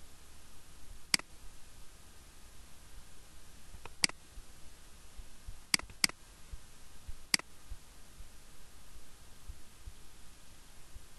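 Computer mouse button clicking: five sharp single clicks a second or more apart, two of them in quick succession a little past halfway, over a faint steady hiss and low hum.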